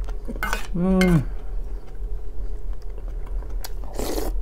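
Metal spoon clinking and scraping in an aluminium bowl of borscht, with a short voiced murmur from the eater about a second in. Near the end comes a loud slurp of soup from the spoon.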